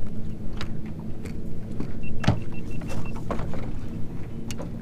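Electric trolling motor humming steadily under the boat's sounds, with several sharp knocks, the loudest a little over two seconds in, and a quick run of about six short high beeps just before it.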